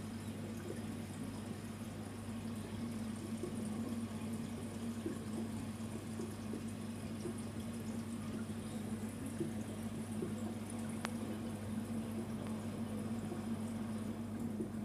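Aquarium air-driven sponge filter bubbling steadily, over a constant low hum.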